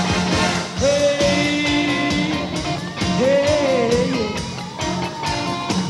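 A rock band playing live with a steady, driving drum beat, while a male singer shouts a long, held "Hey" about a second in and another near the middle.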